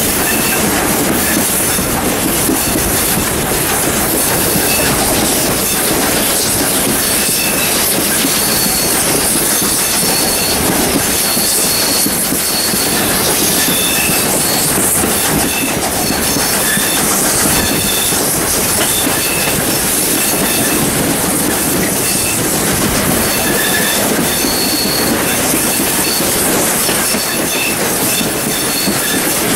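Steam locomotive 621 hauling a five-carriage train up a 1 in 45 grade, heard from an open carriage window behind it: a steady, loud running noise of the train with a strong hiss, and short high squeals from the wheels coming and going on the curve.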